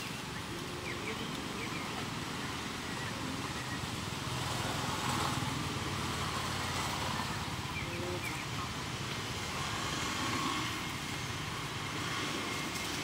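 Steady outdoor background noise: a low rumble under an even hiss, with a few faint short high chirps.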